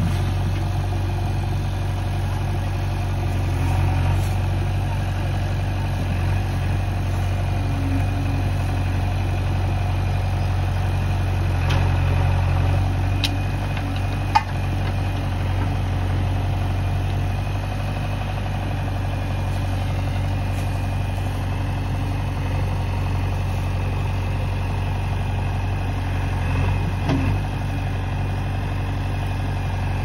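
Diesel engines of a JCB 3DX backhoe loader and a Mahindra 575 tractor running steadily with a low hum as the backhoe loads the trailer, with one sharp knock about halfway through.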